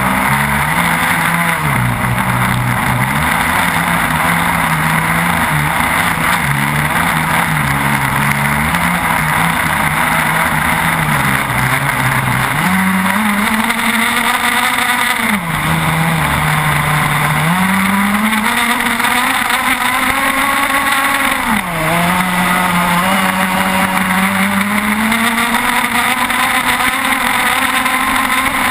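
30cc two-stroke petrol engine with a Quickdraw tuned pipe, on an RC racing catamaran, heard close up from on board running flat out at high revs. Its pitch wavers at first, then climbs and holds high, dipping briefly about 15 and 22 seconds in before picking up again, over a steady rush of water spray.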